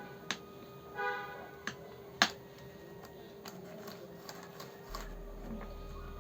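Scattered clicks and taps of small parts being handled while fitting control horns to a foam model plane, the sharpest about two seconds in, over a faint steady hum.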